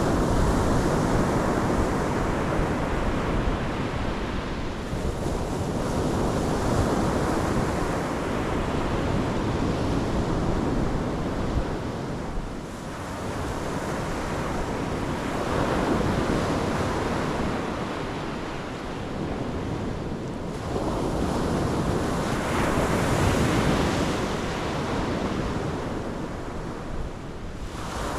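Pacific Ocean surf breaking on the shore: a continuous rushing wash that swells as each wave comes in and ebbs between them, about every five to eight seconds.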